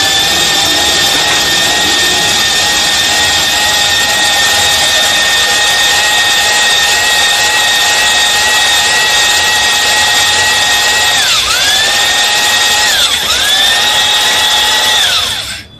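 Electric drill running a hone inside an engine block's cylinder sleeve, polishing the bore: a loud, steady motor whine. Near the end the pitch drops and climbs back twice before the drill stops.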